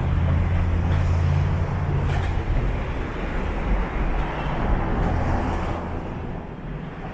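Street traffic: a motor vehicle passing close by, with a low engine hum strongest in the first two seconds or so, then a rushing road noise that swells and fades about six seconds in.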